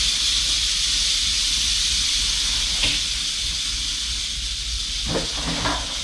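Mexican west coast rattlesnake rattling, a steady high buzz that eases a little partway through, with a few light knocks near the end as she is hooked out of the plastic bin.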